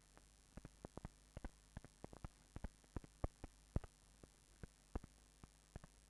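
Near silence on an old film soundtrack: irregular soft clicks and pops, several a second, over a faint steady hum.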